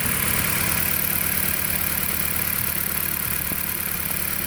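2008 Dodge Caliber's inline-four engine idling unevenly, with an irregular low pulsing: a misfire at idle that new spark plugs have not cured, which the owner suspects may need new ignition coils.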